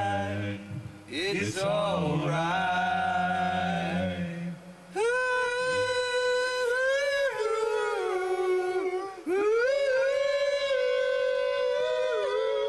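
Unaccompanied voices singing without words: a low held hum under a higher voice for the first few seconds, then, from about five seconds in, one high sustained vocal line sliding between held notes.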